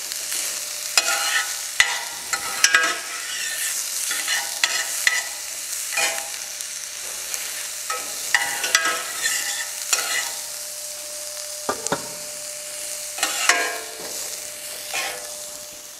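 Cauliflower rice sizzling in a hot skillet while a utensil scrapes and clicks against the pan, stirring and scooping it out before it burns.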